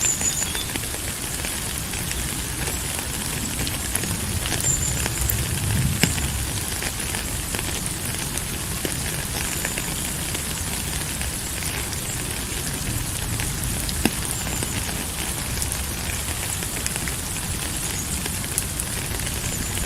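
Steady rain falling, an even hiss with scattered sharp drop clicks and a low rumble underneath.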